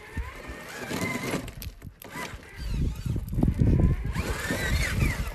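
Traxxas TRX4 RC rock crawler's electric motor and gearbox whining, the pitch rising and falling with the throttle as the truck crawls up over rocks. A louder low rumble comes in through the second half.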